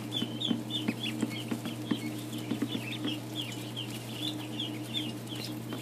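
A brood of newly hatched Ancona ducklings peeping constantly, short high chirps several a second overlapping one another, over a steady low hum.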